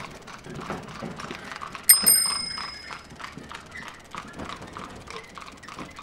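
Busy street sounds with the clip-clop of horse hooves and knocking of wheels. A bicycle bell rings with a quick double strike about two seconds in, and the ring fades over about a second.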